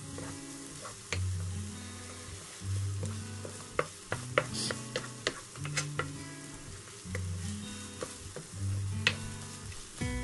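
Wooden spatula stirring and scraping scrambled egg and vegetables in a nonstick frying pan, with scattered taps against the pan over a light sizzle. Low background music notes sound underneath.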